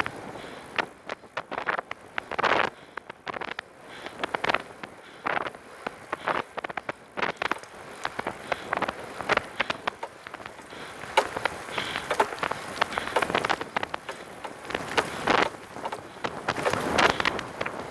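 Recumbent trike rolling along under way: irregular rattles and knocks from the tyres and frame over the path surface, with wind on the microphone.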